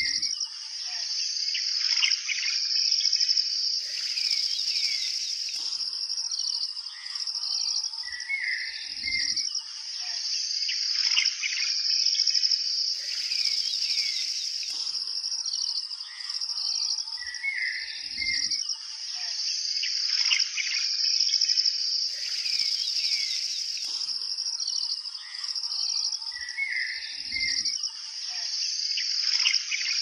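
Nature ambience track of a steady high insect trill with birds chirping over it, the same stretch of a few seconds repeating about every nine seconds as a loop.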